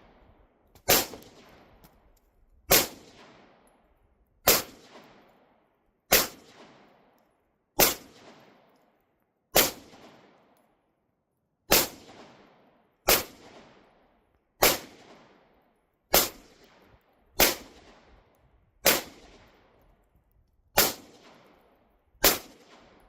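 Fourteen single shots from a 9mm Glock pistol, fired slowly about every one and a half to two seconds, each crack trailing off in a short echo.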